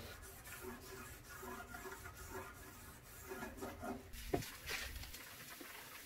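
Faint scrubbing and rubbing inside the firebox of a stainless steel built-in gas grill, a rubber-gloved hand working at greasy, sooty metal, with a single sharp knock about four seconds in.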